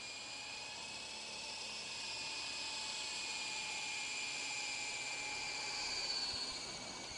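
Electric motor and spinning rotors of a large 3-channel radio-controlled toy helicopter hovering: a steady high whine with several held tones that waver slightly. It grows louder toward about six seconds in as the helicopter comes close, then dips a little in pitch near the end.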